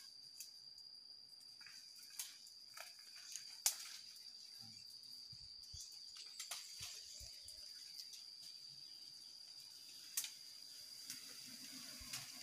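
Faint, steady, high-pitched insect trilling in the forest. A few sharp clicks and snaps sound over it, the loudest at about four seconds and ten seconds in.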